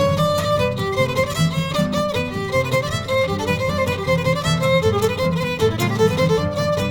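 Background music led by a fiddle playing a quick, moving melody over a steady accompaniment.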